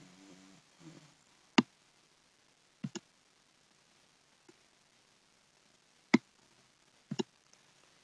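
Computer mouse clicking: a single sharp click, then a quick double click, a single click and another quick double click, spread over several seconds.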